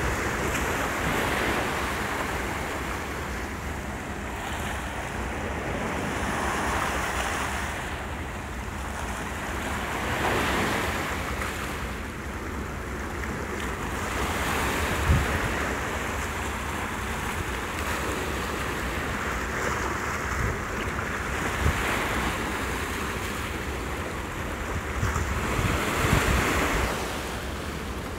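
Small sea waves washing and breaking over shoreline rocks, surging every few seconds, with wind rumbling on the microphone.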